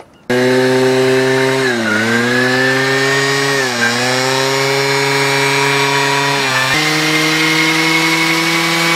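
Garelli Noi moped's 50cc two-stroke engine running at high revs with the bike on its stand, the rear wheel spinning. The sound comes in suddenly just after the start. The revs sag briefly twice and recover, then drop abruptly to a slightly lower steady pitch about seven seconds in.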